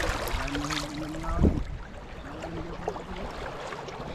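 Steady outdoor wind-and-water noise with faint, indistinct voices in the distance, and a single knock about a second and a half in.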